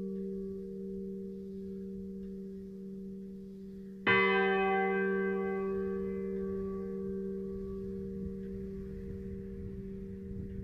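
A 580 kg church bell cast at Midwolda in 1949, tuned to G, swinging in its frame: its clapper strikes once about four seconds in, and the strike's many tones die away slowly over the steady hum still ringing from the earlier stroke.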